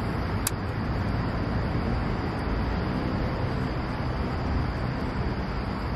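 Steady low outdoor rumble of wind on the microphone and a distant traffic hum, with one sharp click about half a second in.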